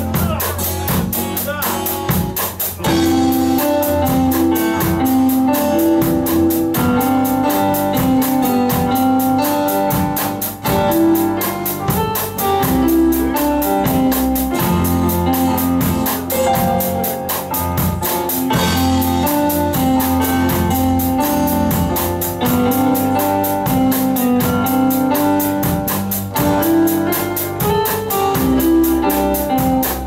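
A live band playing: acoustic guitar, keyboard, electric bass and drum kit, with a steady beat.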